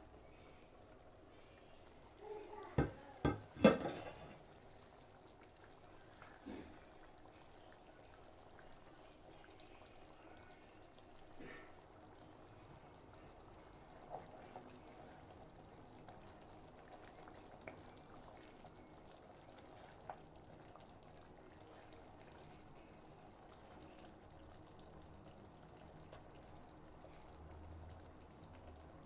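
Three sharp clacks of a metal lid lifted off a pan, about three seconds in. Then oxtail stew simmering faintly in the pan, with a few light clinks of a spoon and fork against it.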